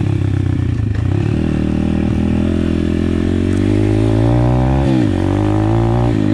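Pit bike engine running under throttle while being ridden, the revs climbing for a couple of seconds, dropping sharply about five seconds in, then picking up again.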